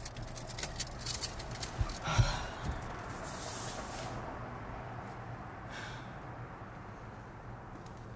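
Clicks and rustling as someone settles into a car's driver seat, a dull thump about two seconds in, then a long breathy sigh.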